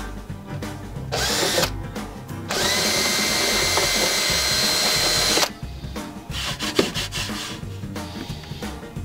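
Power drill with a 3 mm bit drilling through a plywood plate: a short burst about a second in, then a steady high whine for about three seconds that cuts off suddenly. Light knocks and rubbing of the board follow.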